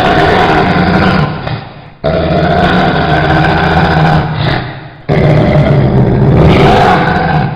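Angry pit bull growling: three long growls, the second starting abruptly about two seconds in and the third about five seconds in, each tailing off at its end.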